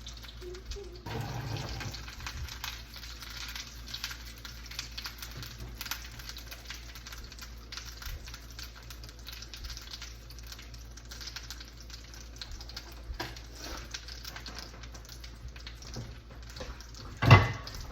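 Corn on the cob toasting in melted butter in a frying pan, the butter sizzling with a steady fine crackle. A single sharp knock near the end.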